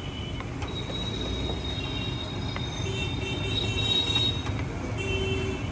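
Street traffic running with a steady low rumble, and a high-pitched squeal that starts about a second in and fades after about four seconds.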